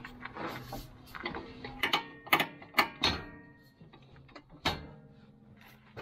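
About six sharp metallic clicks and clunks, some with a brief ring. They come from the Kubota BX23s's mid-mount mower height-adjustment knob, a metal press-fit piece, being pushed up and turned by hand through its indents to raise the linkage and the steel belly guard hung from it.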